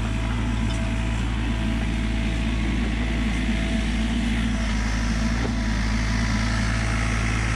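Sany SY35U mini excavator's diesel engine running steadily under load as the machine works along the dirt track, with an even hum and rattle throughout.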